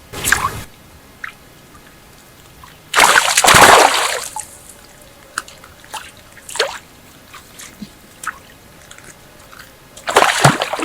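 Water splashing and sloshing: a short splash at the start, a loud, longer splash about three seconds in, and another starting near the end, with small drips and plops between.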